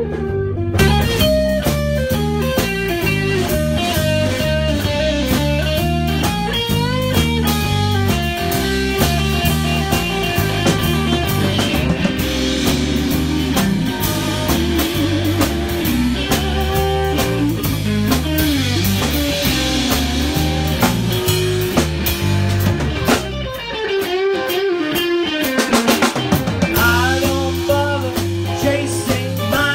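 Live blues-rock band playing: electric guitar lines over a drum kit. About 24 seconds in the low end drops away for a couple of seconds before the full band comes back.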